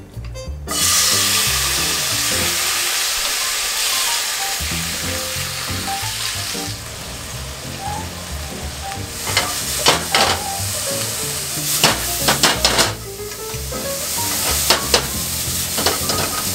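Chicken gizzards hitting a hot oiled frying pan, starting to sizzle loudly under a second in, then frying steadily. Wooden chopsticks stirring them click against the pan several times in the second half.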